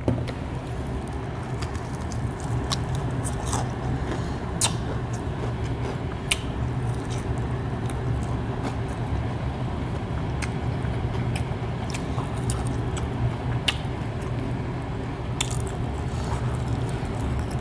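A person biting and chewing crispy fried chicken, with scattered sharp crunches of the breading over a steady low hum.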